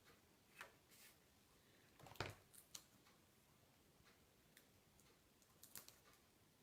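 Near silence with a few faint, scattered clicks and taps from paper card pieces and crafting supplies being handled on a desk; the sharpest click comes a little over two seconds in.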